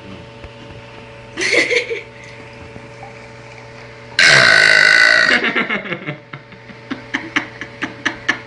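A person burping: a short burp about a second and a half in, then a very loud, long burp lasting about a second, about four seconds in.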